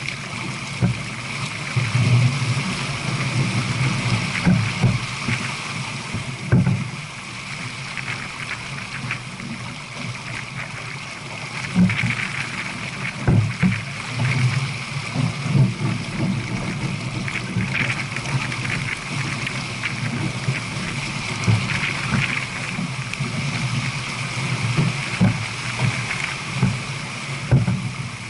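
Water rushing and gurgling along the hull of a J/24 sailboat moving at about 7 knots, with irregular low thumps throughout.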